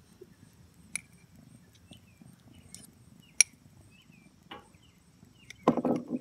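A spoon clinks against a glass three times, the second clink the sharpest and most ringing, over a faint steady drone of crickets and scattered small chirps. A louder rustle of handling comes just before the end.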